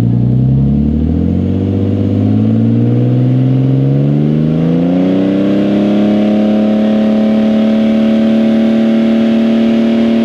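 Car engine revved up over about five seconds and then held at steady high revs, its exhaust note loud and even: a static decibel test of the exhaust against a track-day noise limit.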